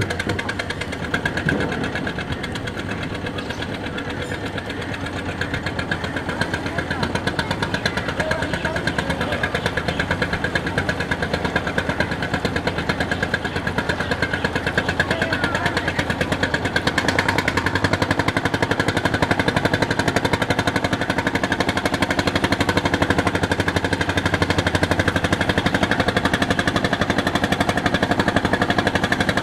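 Boat engine running steadily with a fast, even chugging.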